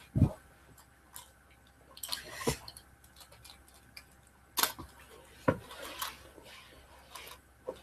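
Scattered thumps, knocks and rustling of a person crawling and shifting on a carpeted floor close to the microphone. The loudest is a single low thump just after the start, with sharper clicks and knocks at about two, four and a half, and five and a half seconds in.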